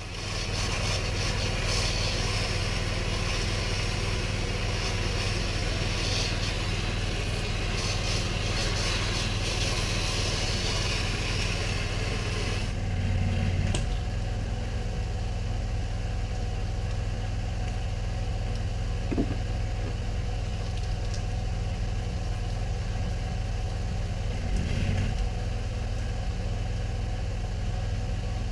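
Gasoline pressure washer engine running steadily, with a high hiss over it for the first half that drops away about halfway through.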